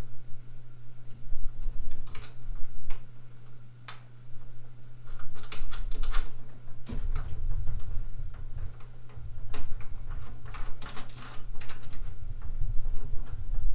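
Scattered small metal clicks and taps as a bolt and nut are fitted by hand to a gas strut mount on a steel tool cart, busier from about seven seconds in, over a steady low hum.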